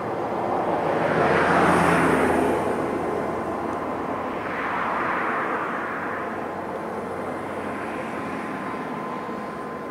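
Cessna 208B Grand Caravan's single turboprop engine and propeller passing by. It is loudest about two seconds in, swells again around five seconds, then settles to a steady drone with a thin whine running through it.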